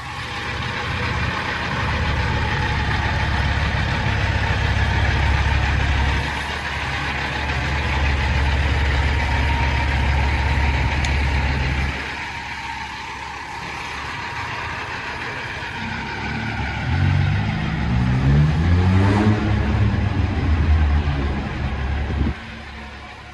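Peterbilt semi truck's diesel engine running steadily and loud, easing off about halfway through, then its pitch climbing several times in quick succession as it pulls away and picks up speed; the engine sound drops off sharply near the end.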